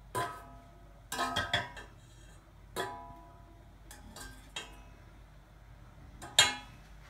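A serving spoon knocking and scraping against a stainless steel pot while pasta is scooped out: a handful of irregular metallic clinks, each ringing briefly, with a cluster about a second in and the loudest near the end.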